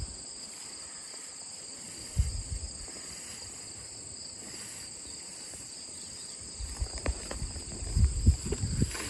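Steady high-pitched chirring of crickets or other insects, with a low thump about two seconds in and a cluster of low thumps and knocks near the end.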